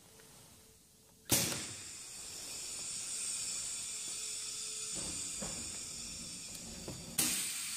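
High-pressure water spray from a bottle washer's plunger pump, tested at about 100 bar. A loud hiss starts suddenly about a second in and keeps on steadily, then surges again near the end.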